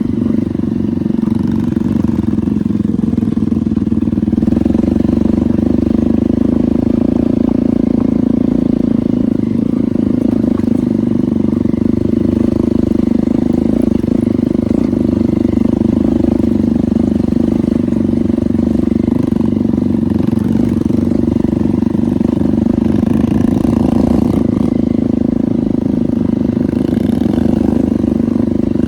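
Hero Impulse's single-cylinder engine running steadily as the motorcycle is ridden.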